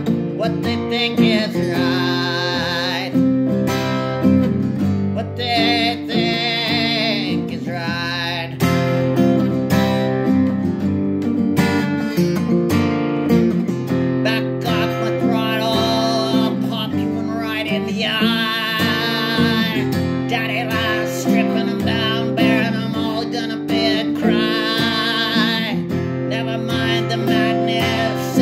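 Acoustic guitar strummed steadily through a chord progression, with a wavering vocal melody coming in short phrases of a couple of seconds over it.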